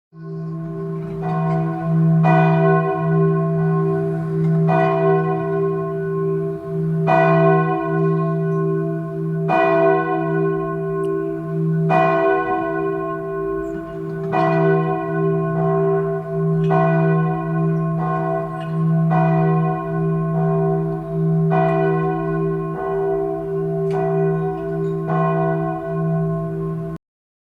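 Church bells pealing: strikes come in pairs about every two and a half seconds, each new stroke ringing over the long, steady hum of the ones before. The ringing cuts off suddenly near the end.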